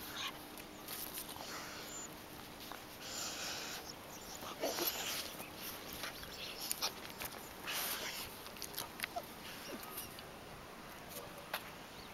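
Street dogs at play, giving several short breathy huffs, with light clicks and scuffles in between.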